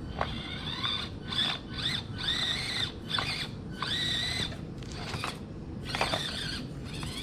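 Axial SCX24 Deadbolt micro crawler's small electric motor and drivetrain whining in a string of throttle bursts, the high whine rising and holding, some bursts short and a few held for about a second.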